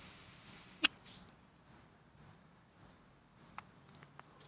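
A cricket chirping steadily, about two short high chirps a second, with a single sharp click about a second in.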